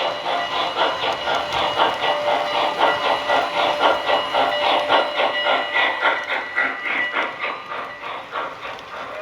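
Model steam locomotive's onboard sound system playing a rhythmic steam chuff with hiss, about three chuffs a second, easing off near the end.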